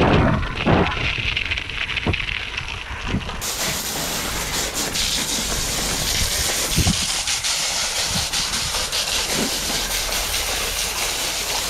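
Mountain bike rolling over gravel with wind on the microphone and a few knocks. About three seconds in, a steady hiss of a hose spraying water starts and holds, washing the mud off the bikes.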